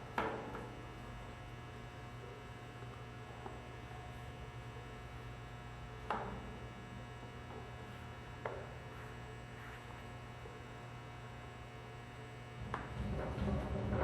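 Steady electrical mains hum, with a few short clicks about six and eight and a half seconds in, and louder handling noise starting near the end.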